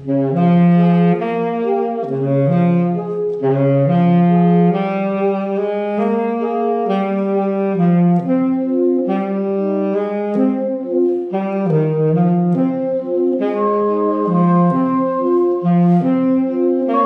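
Saxophone quartet (soprano, alto, tenor and baritone saxophones) playing together in repeated, evenly pulsed note blocks, the baritone moving underneath. A high held note enters about two-thirds of the way through and sustains over the pulsing chords.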